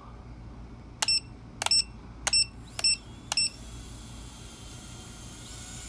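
Five short electronic beeps of the same pitch, about 0.6 s apart, from an Emax TinyHawk 2 micro drone as its battery is plugged in, followed by a faint steady high-pitched whine. The drone has a replacement AIO flight controller board that the owner says is dead on arrival.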